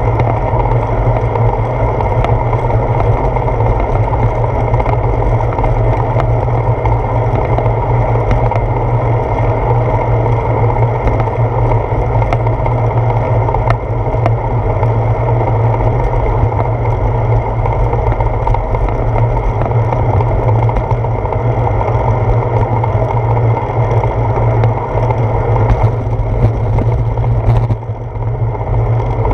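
Steady, loud rush of wind and road rumble on a handlebar-mounted GoPro's housing as a bicycle rolls along a paved path, easing briefly near the end.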